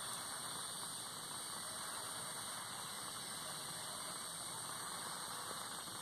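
Steady background hiss at a constant level, with no distinct sounds standing out.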